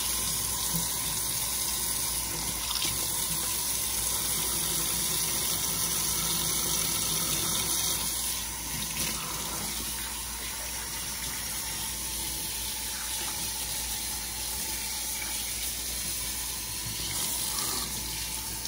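Pull-down kitchen faucet spray running steadily, the water splashing over a wet cat's fur and into a stainless steel sink as the cat is rinsed during its bath. The flow gets a little quieter after about eight seconds.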